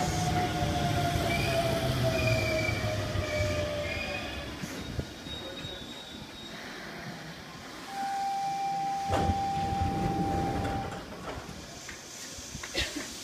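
Hokuso Railway 7300 series electric train braking to a stop: the motor whine glides down in pitch over wheel rumble and a higher squeal, dying away about five seconds in. About eight seconds in, a steady tone sounds for about three seconds with a knock partway through as the doors open.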